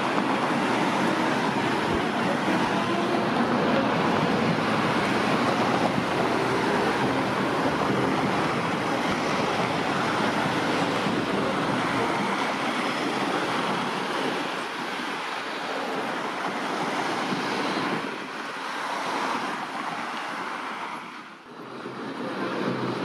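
Street traffic noise with a V3A-2S-93 double-ended tram running past: a steady rumble and hiss of wheels and motors that slowly fades over the second half.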